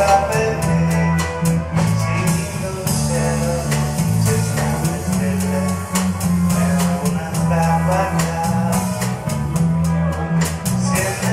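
Small live band playing a pop song: electric guitars, bass guitar and a drum kit keeping a steady beat, with a melody line carried on top.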